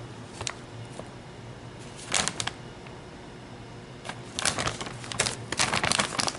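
Plastic cookie bag crinkling as it is handled and turned over: a short crinkle about half a second in, another around two seconds, then a longer run of crinkling from about four seconds in.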